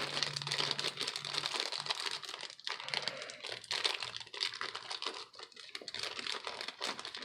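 Many small, light clicks and rustling as the steel parts of an H&R Model 622 revolver are handled while its mainspring assembly is fitted into the frame, with one sharper click at the start.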